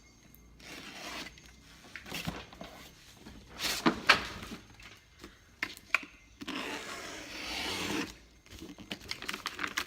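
A cardboard parcel being handled and opened by hand: irregular rubbing and scraping with a few sharp knocks, and a longer scraping rustle about seven seconds in.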